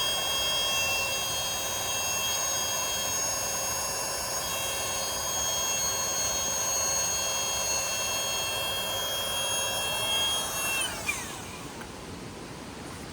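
A small high-speed motor, such as a fan or blower, running with a steady high whine. About 11 seconds in it is switched off and the whine slides down in pitch as it spins down, leaving a faint hiss.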